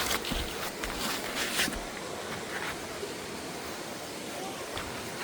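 Steady rushing of water from the stream and waterfall below, with a few scraping footsteps on a dirt and gravel trail in the first two seconds.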